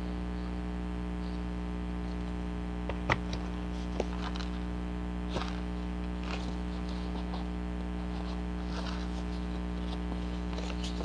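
Steady electrical mains hum, with faint scattered paper rustles and two light taps, a little after three seconds and at about four seconds in, as a glued paper signature is handled.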